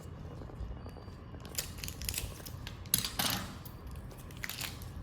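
Scissors snipping open a chocolate-bar wrapper: a few separate cuts with some crinkling of the packaging, the loudest about three seconds in.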